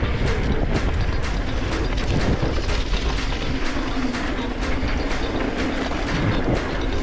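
Mountain bike rolling over dirt singletrack: a steady rush of wind and trail rumble on the bike-mounted camera's microphone. Over it, background music with a steady beat of about two ticks a second.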